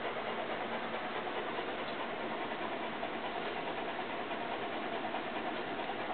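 Electric dog-grooming clippers running with a steady buzz.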